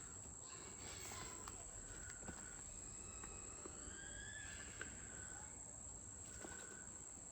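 Faint, steady high-pitched chirring of crickets, with a few soft clicks and rustles of items being handled.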